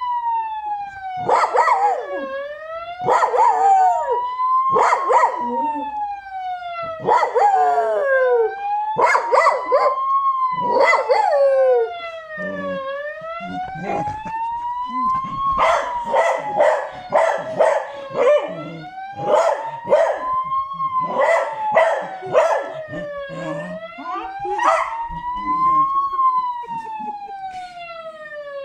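Ambulance siren wailing, its pitch rising and falling slowly, about every five seconds, with a dog barking over it in short bursts, most often a little past halfway.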